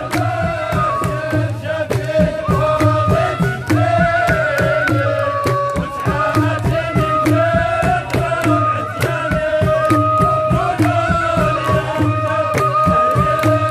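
Moroccan folk drum troupe playing: hand-struck frame drums and hand clapping keep a fast, even beat under a held, slightly wavering melody line.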